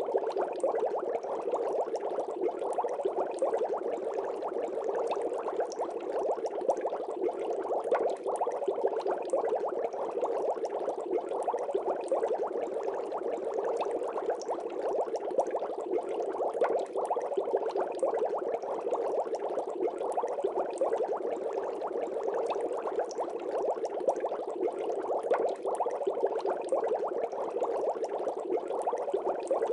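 Steady water bubbling, a dense, even stream of small bubbles popping that does not change.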